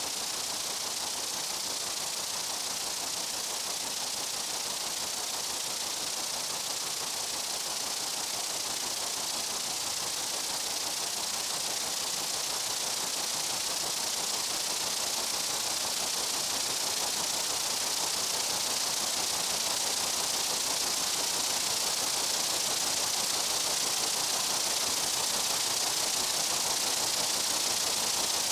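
Steady, dense buzzing of many insects, an even hiss-like chorus without separate calls, growing slightly louder over the second half.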